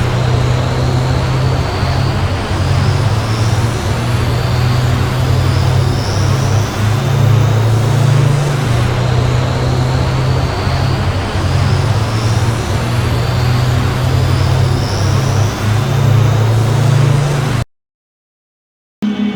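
Star Wars cloud car boost sound effect: a steady, loud engine drone with a warbling low hum and faint high whines that sweep upward every few seconds. It cuts off near the end, and after a short silence a steadier engine hum starts.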